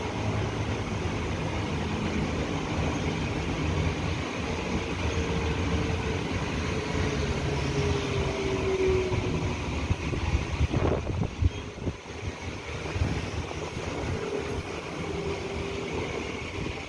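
Taiwan Railway EMU900-series electric commuter train running past close by: a steady rumble of wheels on rail with a faint motor whine. A few louder knocks come about eleven seconds in.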